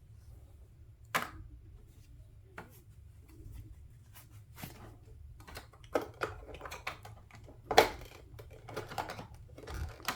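Scattered clicks and knocks of hard plastic as the stand mount of a Samsung Odyssey Neo G9 monitor is worked by hand to pull it loose, with one sharper knock about 8 seconds in and a run of quicker clicks near the end.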